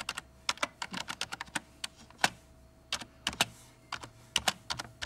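Typing on a computer keyboard: a quick, irregular run of key clicks, with one louder keystroke a little over two seconds in.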